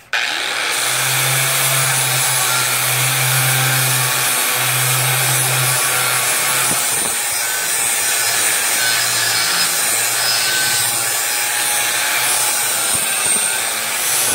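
Porter-Cable angle grinder with a flap disc grinding rust off the edges of steel angle iron, cleaning it to bare metal for welding. It starts suddenly and runs steadily, and a low hum under it eases off after about six seconds.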